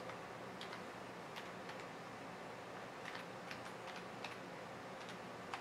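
Computer keyboard keys being pressed one at a time while a Wi-Fi password is typed: faint, short clicks at an uneven, unhurried pace, about a dozen in all, over a faint steady hum.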